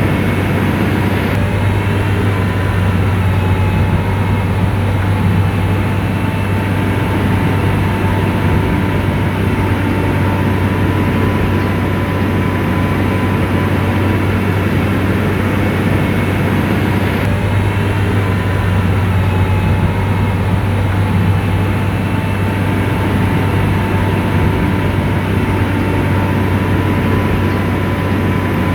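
Komatsu bulldozer's diesel engine running steadily under work, a deep, even hum with a thin whine riding over it.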